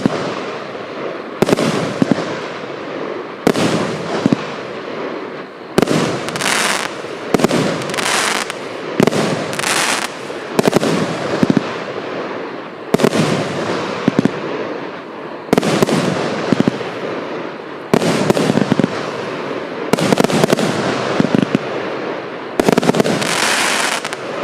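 A 60-shot, 29 mm-calibre SJH129060F moulded firework cake firing its shots in sequence, a sharp bang every second or two. Each bang is followed by a fading tail, some of them with a high hiss.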